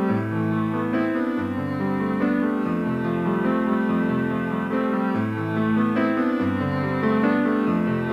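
Instrumental music, keyboard-led, playing a slow run of sustained chords over a low bass line that changes every second or so.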